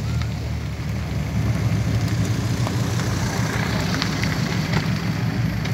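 Car engine idling with a steady low exhaust rumble.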